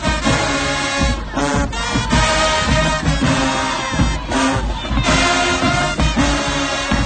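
High school marching band playing in the stands: brass with sousaphones over drums, loud and continuous, with a few sharp drum or cymbal hits.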